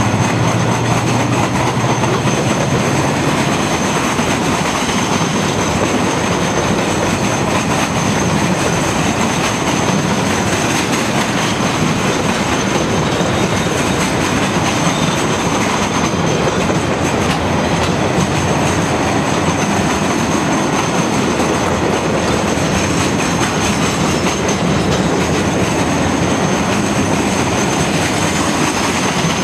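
Container freight wagons rolling past close by: a steady loud rumble of steel wheels on the rails with clickety-clack over the joints and a thin, steady, high squeal from the wheels. A low hum fades out in the first few seconds.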